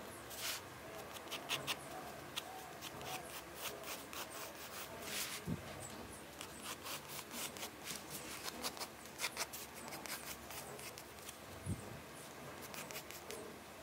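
Pencil scratching in short, quick strokes across textured watercolour paper, along with paper rubbing as hands move over the sketchbook. There are two soft thumps, one about halfway through and one near the end.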